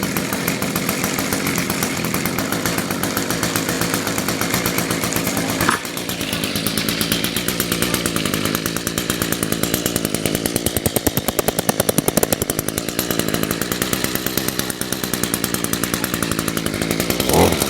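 Echo SRM-210 two-stroke string trimmer engine running steadily on half choke, just after starting. It dips briefly about six seconds in and revs up louder near the end.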